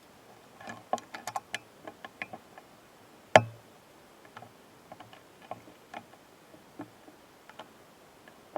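Two stag beetles fighting at close range: irregular clicks and taps of their mandibles and legs knocking against each other, with one much louder knock a little over three seconds in.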